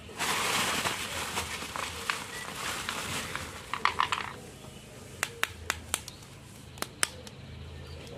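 Plastic bubble wrap crinkling and rustling as an action figure is pulled out of its bag, dying away after about four seconds. Then a handful of sharp clicks as the plastic figure is handled.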